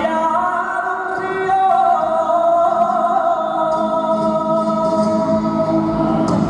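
Male flamenco singer holding one long, wavering, ornamented sung phrase that ends about six and a half seconds in, with flamenco guitar accompanying underneath.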